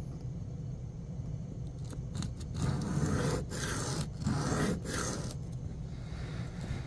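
Steel knife blade stroked by hand across a wet sharpening stone in freehand sharpening: a scraping, rasping hiss. It stays faint at first, then comes as a run of louder strokes with short breaks between them past the middle.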